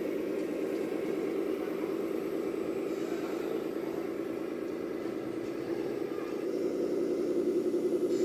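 Simulated truck diesel engine idling from an RC model truck's sound module, a steady rapid pulsing that grows a little louder near the end.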